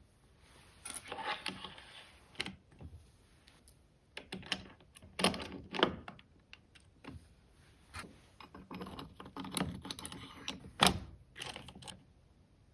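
Small metal hardware clinking and clicking by hand: angle brackets, bolts and wing nuts being handled and slid into a track, in scattered knocks, the loudest a sharp knock about eleven seconds in.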